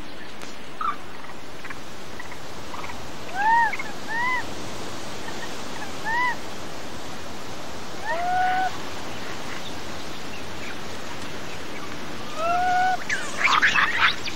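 Young rhesus macaque giving short, arched coo calls, about six spread out with gaps between them, then a harsher, noisier burst of calling near the end. These are the calls of a yearling newly pushed away from its mother by a new baby.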